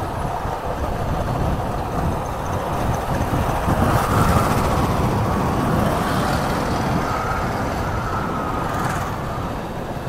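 Yamaha R15 V3 motorcycle on the move, its 155 cc single-cylinder engine running under a steady rush of wind noise.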